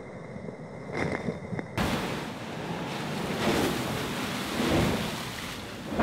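Seawater crashing over the deck of an ocean racing yacht, a heavy rush of water and spray with wind on the microphone. About two seconds in the sound changes abruptly to a louder, fuller rush that swells twice and peaks near the end.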